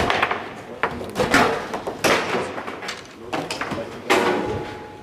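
Garlando foosball table in play: irregular sharp knocks and clacks as the ball is struck by the plastic men and bangs off the table walls, and rods knock against their stops.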